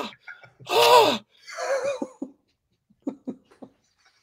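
A person's wordless vocal exclamation, loud and with a bending pitch, about a second in, followed by a softer breathy vocal sound and then a few brief faint sounds after about three seconds.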